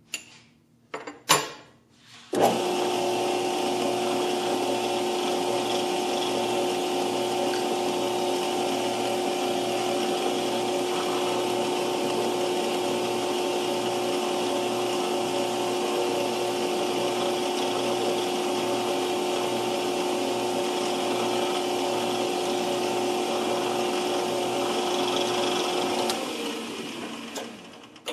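Small metal lathe starting up after a few clicks, then running steadily with a whine and a faint regular pulsing while a drill bit bores into the end of a bronze bar. Near the end it is switched off and spins down.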